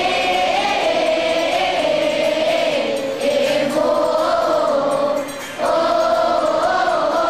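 A group of children singing a church hymn together in unison, holding long notes in slow phrases, with a short breath break about five and a half seconds in.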